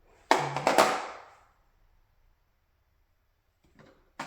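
Metal hand tools clacking as they are set into a tool set's case: two sharp clacks about half a second apart, each ringing briefly, then two fainter clicks near the end.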